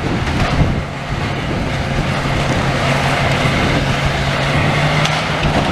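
A large engine running steadily at a constant pitch, over a wash of wind and outdoor noise, with a couple of faint knocks near the end.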